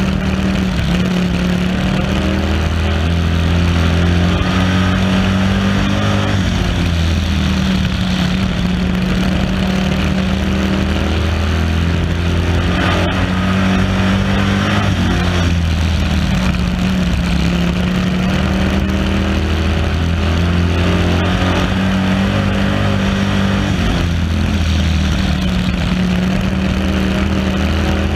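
A short-track stock car's engine heard from a camera mounted on the car, running hard at racing speed. Its revs repeatedly climb and then drop every few seconds as it laps the oval, over steady wind and road noise.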